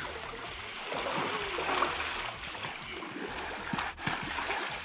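Pool water splashing and churning as swimmers kick through it with mermaid monofins.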